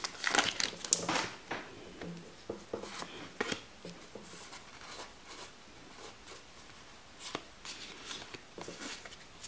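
Foil booster-pack wrapper crinkling as the trading cards are pulled out, louder in the first second or so. Then faint scattered clicks and rustles of the card stack being handled and shuffled.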